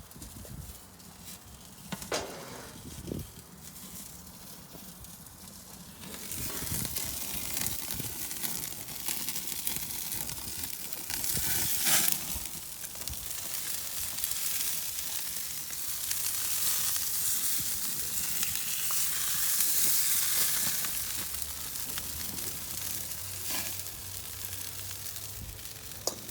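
Chicken sizzling on a hot grill: a steady hissing sizzle that comes in about six seconds in and swells louder now and then, after a couple of knocks in the quieter first seconds.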